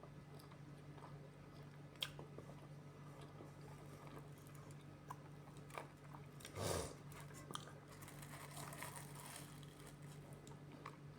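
Close-up eating sounds: chewing and crunching with scattered small clicks, and one louder burst about two-thirds of the way through. A steady low hum runs underneath.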